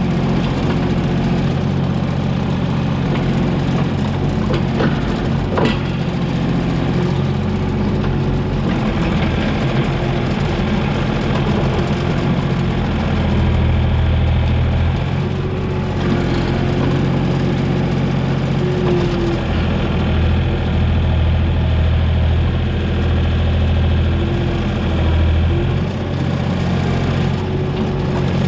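Komatsu PC28 mini excavator's diesel engine running steadily as the machine works. Its low rumble swells louder twice, and a couple of sharp clicks come about five seconds in.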